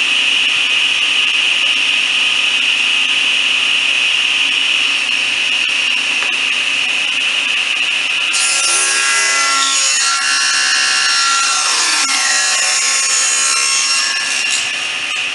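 Table saw running at speed with a steady high whine. About eight seconds in, a wooden board is fed into the blade and a 12 mm strip is ripped off it; the cutting sound stops shortly before the end while the blade keeps spinning.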